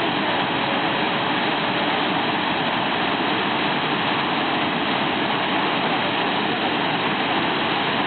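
Waterfall heard close up: a broad curtain of water pouring over rock and crashing into the pool below, a steady, unbroken rush.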